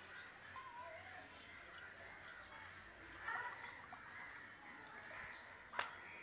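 Faint outdoor ambience with birds calling in the background, loudest about three seconds in, and a single sharp click near the end.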